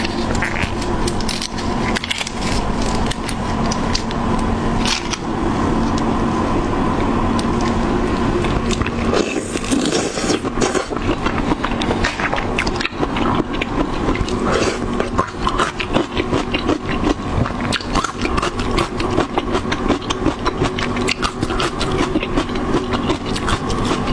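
Wet, dense crackling and clicking of a marinated red shrimp's shell being cracked and peeled by hand, and of chewing close to a clip-on microphone.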